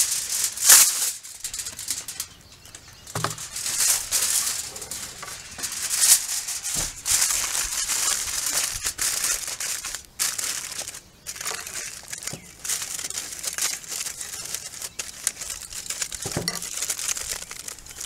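Heavy-duty aluminium foil crinkling and crackling as it is pulled over a pan and crimped around it by hand, in irregular bursts of rustle with a sharp crackle about a second in.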